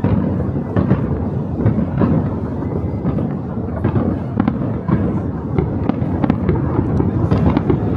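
Fireworks display going off in a rapid, unbroken run of bangs and crackles over a steady low rumble.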